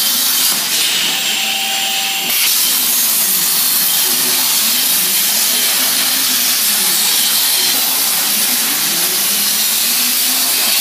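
200 A CNC plasma cutter's torch cutting 2 mm stainless steel, its arc giving a loud, steady hiss. About a second in, the hiss briefly brightens with a thin steady tone before settling back.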